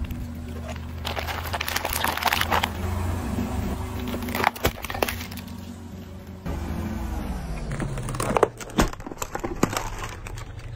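Car tyre rolling over and crushing hard plastic objects: several bursts of cracking and crunching plastic over the low, steady hum of the car's engine.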